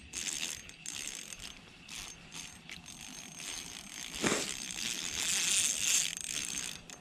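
Spinning reel on an ice-fishing rod being cranked, its gearing giving a ratcheting, whirring mechanical sound that swells and fades, with one short knock about four seconds in.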